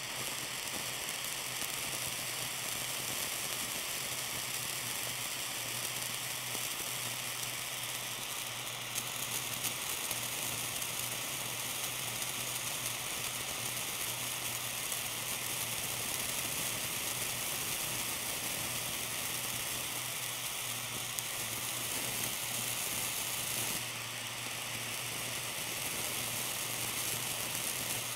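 Tiny blowtorch flame hissing steadily against a wedge of blue cheese, the melting cheese sizzling, with occasional small pops.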